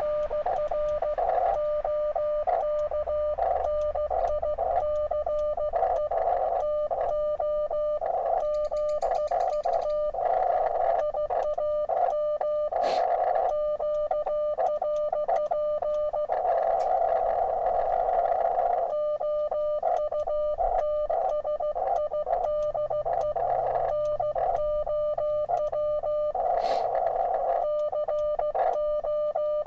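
Morse code (CW) from a ham radio transceiver: a steady mid-pitched beep keyed in dots and dashes, with receiver hiss filling the gaps between words. It spells out a QSO exchange: 'RR OK nice to meet, I am QRP outside now, cold, BK'. Two sharp clicks stand out, one about halfway through and one near the end.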